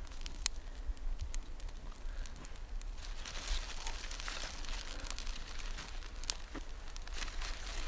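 Dry twigs and grass crinkling and snapping as they are handled and piled onto a small kindling fire, with scattered sharp crackles.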